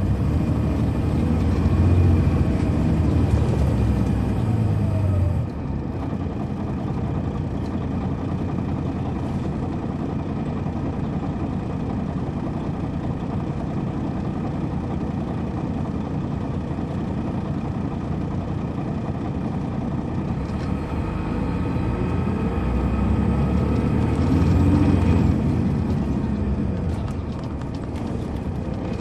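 Detroit Diesel Series 60 engine of a 2003 MCI D4500 coach heard from on board, pulling hard at first and dropping off abruptly about five seconds in. It then runs steadily, and pulls hard again for a few seconds near the end before easing off.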